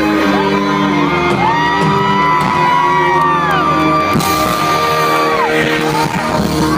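Loud pop music playing over an arena's speakers, with fans letting out several long, high, overlapping screams in the middle, heard through a phone's voice-memo microphone in a large hall.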